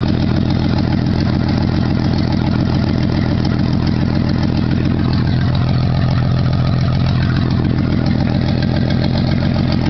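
1992 Jeep Cherokee XJ engine idling steadily through a new header and downpipe. The exhaust ends open there, since the cat, muffler and tailpipe are not yet fitted.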